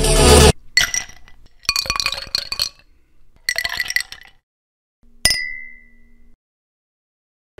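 Whisky pouring from a bottle into a Glencairn whisky glass in three short gushes, the glass ringing faintly. About five seconds in comes a single sharp glass clink that rings briefly.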